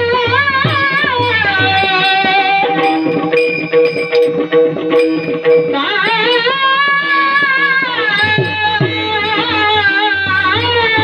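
A male kirtan singer holds long, ornamented notes that glide up and down in pitch, over sustained instrumental notes. A low drum beat drops out after about two seconds and comes back near the end.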